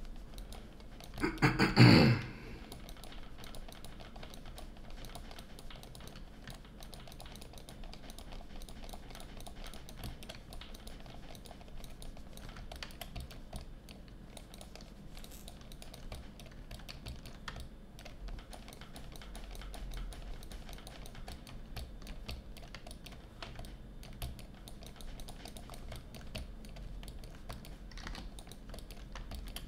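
Computer keyboard keys clicking irregularly and lightly while someone works at a computer, over a low hum. A brief, much louder burst of noise comes about one and a half seconds in.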